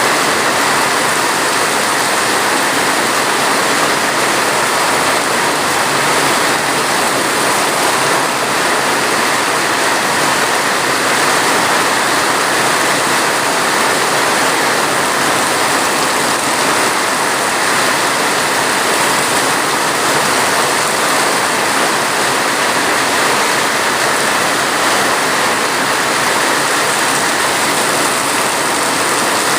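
Steady, heavy rain: a dense, even rushing hiss with no separate drops standing out and no change in level.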